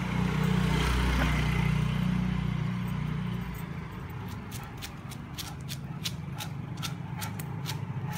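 Low rumble of passing road traffic that fades about three and a half seconds in, followed by a run of light, sharp clicks, about two to three a second.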